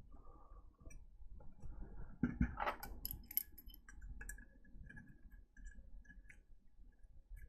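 Light clicks and scraping from prying at and handling the plastic housing of a JC PRO1000S programmer during disassembly, loudest as a short cluster of sharp clicks a little over two seconds in.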